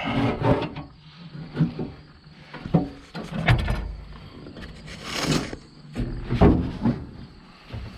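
Irregular metal clanks, knocks and rattles of hand tools and machine parts being handled while the rotary screen drive belt on a combine is changed.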